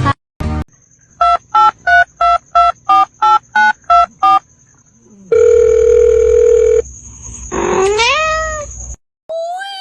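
Telephone keypad dialing beeps: ten short beeps at about three a second. They are followed by a steady tone of about a second and a half, then a short call that sweeps upward in pitch, like a cat's meow.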